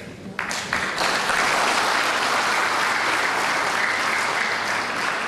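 Audience applauding: a few scattered claps about half a second in, swelling within a second into steady applause.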